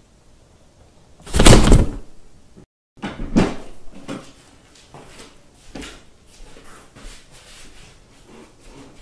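A cat knocking and bumping against a cardboard panel with a hole cut in it: one loud bang about a second and a half in, then after a short drop-out a run of softer knocks and scuffs.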